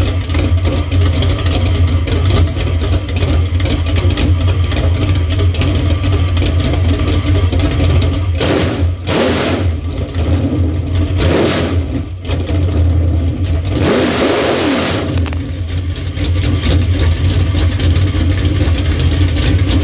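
1993 LT1 5.7 L small-block V8 with a Comp Xtreme Energy 276/281 cam, idling through open headers. It is revved briefly three times around the middle, the last rev the longest, and settles back to idle each time.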